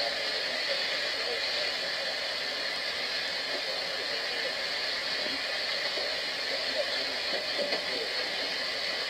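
Steady hiss with faint, indistinct voices beneath it.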